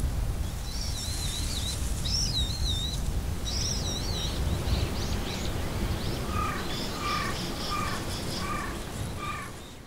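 Birds calling over a steady low rumble of outdoor noise: a wavering, warbling song for the first few seconds, then a run of short repeated calls roughly every half second. The sound fades down near the end.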